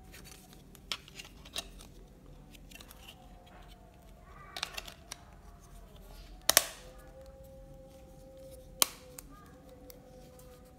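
Sharp plastic clicks and snaps as a budget feature phone's back cover is pressed into place and the handset is handled. The loudest snap comes about six and a half seconds in, with another near nine seconds, over a faint wavering tone.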